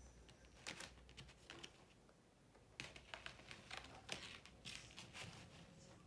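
Hands handling art materials on a tabletop, including turning the board that holds the artwork: faint scattered taps, clicks and rustles, a few about a second in and a busier run from about three seconds in.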